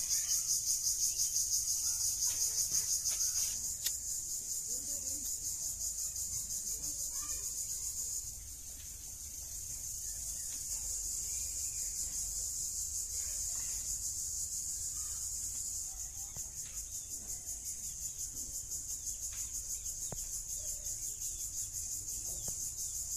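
A steady insect chorus, high-pitched and rapidly pulsing, is the loudest thing throughout. Faint clicks and knocks of firewood sticks being handled sound beneath it.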